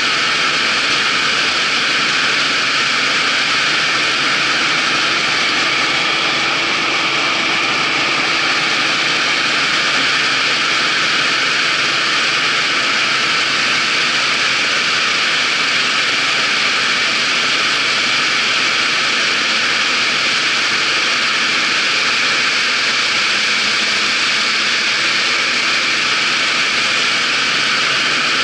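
Claas Dominator 88 combine harvester running steadily: a constant, even mechanical rush with no change in pitch or level.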